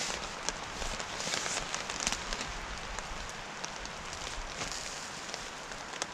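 Steak sizzling in a frying pan on a gas camping stove: a steady hiss with scattered crackles and pops.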